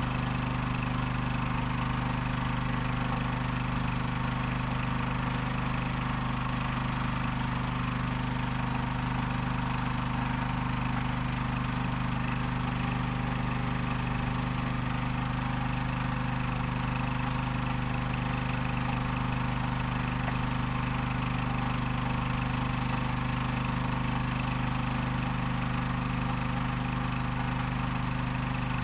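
Small Robin petrol engine running steadily at a constant speed, powering a machine that separates gold from sand.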